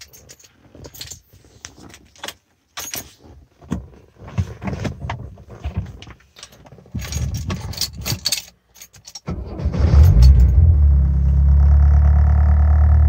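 Scattered clicks and jangles of keys at the ignition of a 1970 Renault 16 TS, then about nine seconds in its four-cylinder engine cranks briefly, catches and runs with a steady note.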